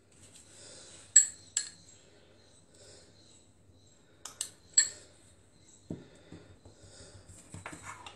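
Metal fork clinking against a small glass: five sharp, bright clinks in the first five seconds, then softer taps and scraping.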